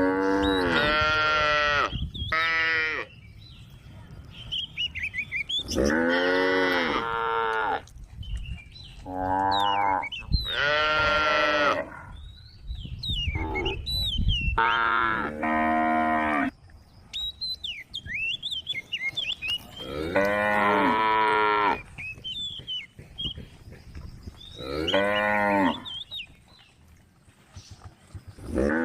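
Cattle mooing back and forth: about eight long, deep calls a few seconds apart, some from different cows, as the herd calls to one another.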